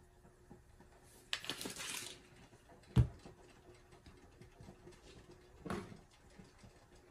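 Garlic powder being shaken from its shaker over a pan of cream sauce: a short rattling shake about a second in, one sharp knock about three seconds in, and another brief shake near the end.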